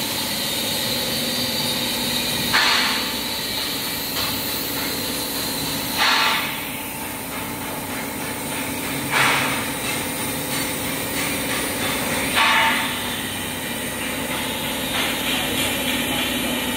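Meltblown nonwoven fabric production line running steadily, its motors humming as the fabric web feeds over the rollers. A short hiss rises out of the running noise four times, about every three seconds.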